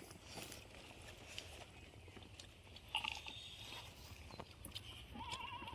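Faint chewing and small clicks of someone eating.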